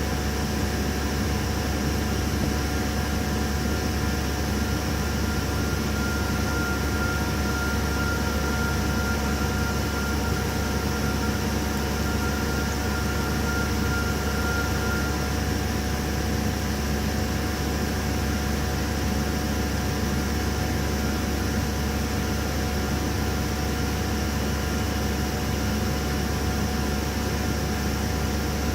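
CNC milling machine running steadily, a constant low hum with a faint high whine for a stretch in the middle.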